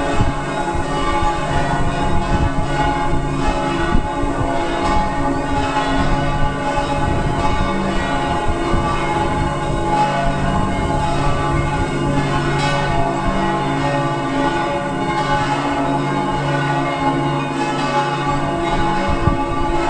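Church bells pealing, several bells ringing together so that their tones overlap and hang on without a break.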